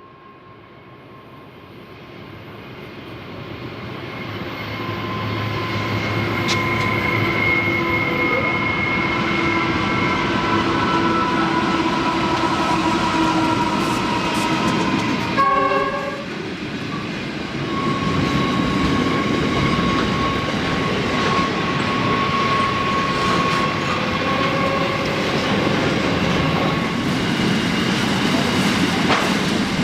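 Diesel freight train approaching, growing louder over the first six seconds, then passing steadily with engine and wheel-on-rail noise. A short horn blast sounds about halfway through.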